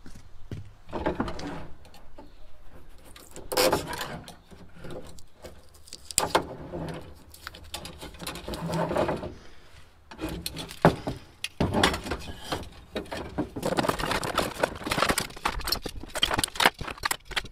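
Scraping, clinking and clattering of a metal spoked bicycle rim being worked with a hand tool and shoved into a plastic bin of scrap bicycle parts. It comes in irregular bursts, then runs almost continuously through the last six seconds.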